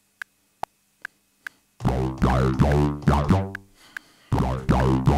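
Metronome clicking in three-four time, about two and a half clicks a second with a lower-pitched click on each downbeat. Under it, about two seconds in, a software synthesizer played from the pads sounds two short phrases of notes with swooping pitch.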